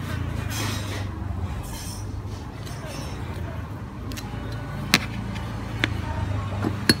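Electric meat grinder's motor running with a steady low hum. A few sharp knocks or clicks sound over it in the second half, about a second apart.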